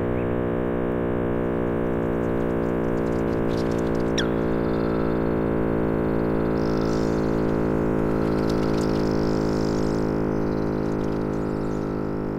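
A steady, loud drone with many overtones, like a synthesizer holding one low note. About four seconds in, a short high whistle-like sweep falls quickly in pitch, and a faint hiss sits above the drone in the second half.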